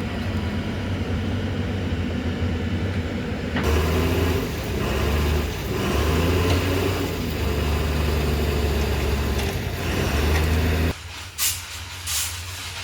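Heavy diesel engine running steadily, with two short, sharp hisses of released air near the end.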